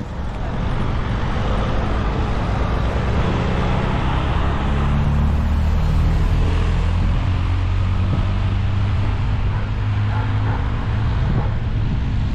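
Wind rumble on the microphone of a camera on a moving bicycle, with road noise, loud and steady from about half a second in.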